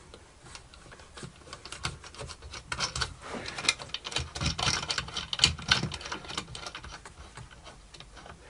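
Irregular small clicks and wooden knocks as plywood parts, screws and nuts are handled and fitted by hand onto a homemade wooden benchtop planer, busiest in the middle.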